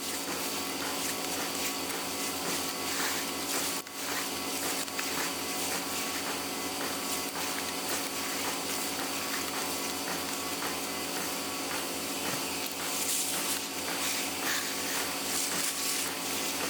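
A machine engine running steadily, an even hum with a fine regular pulse, briefly dipping about four seconds in.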